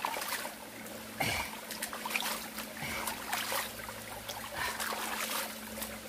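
Shallow mountain stream trickling over rocks, with small irregular splashes as hands move and scoop in the water, one a little louder about a second in.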